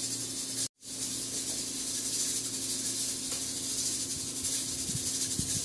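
A steady hiss with a faint low hum, dropping out completely for a moment under a second in. Near the end come a few soft knocks and scrapes from a knife peeling a green plantain.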